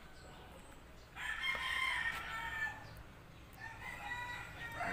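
A rooster crowing: one long crow about a second in, and another, fainter crow starting near the end.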